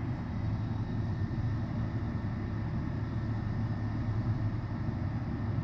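Freight train's cars rolling past: a steady low rumble with no horn or distinct wheel clacks.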